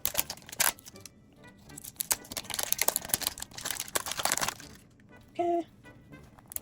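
Mystery-toy packaging crinkling and tearing as it is pulled open by hand, with a quick run of crackles at the start and a longer stretch of crinkling past the middle.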